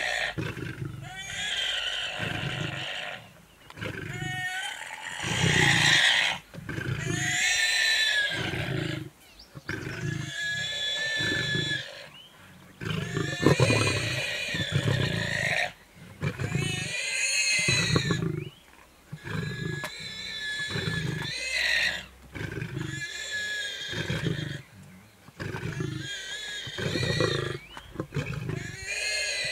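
Warthog squealing in distress, being eaten alive by lionesses: about ten long, high-pitched screaming cries, each a second or two long, with short breaks between them.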